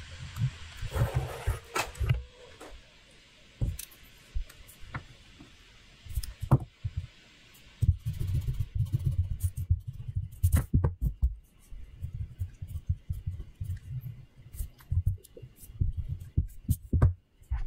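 Mechanical pencil drawing on paper close to the microphone: irregular runs of low thuds and rubbing from the hand and pencil working on the page, with scattered sharp clicks.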